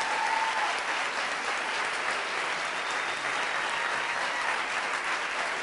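An audience applauding, a steady even clapping.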